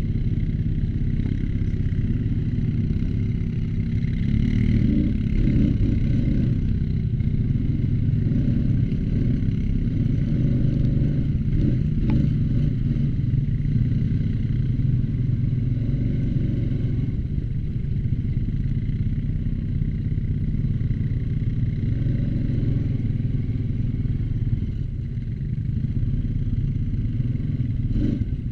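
ATV engine running steadily under way, picking up a little about four to six seconds in.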